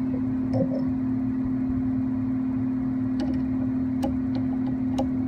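Steady machine hum with one constant low tone, with a few light metallic clicks in the second half as the gib screws on the mini lathe's carriage are snugged.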